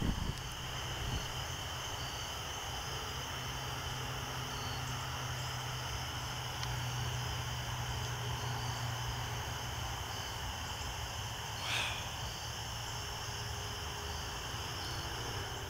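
Crickets and other insects chirring steadily at dusk, one of them in a pulsing trill, over a low steady hum. One brief sharper sound comes about twelve seconds in.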